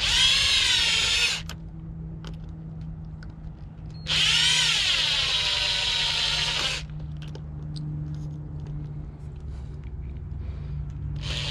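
Power drill running in two bursts of a few seconds each, its high motor whine wavering in pitch as the load changes, with a third burst starting near the end. A steady low hum runs underneath.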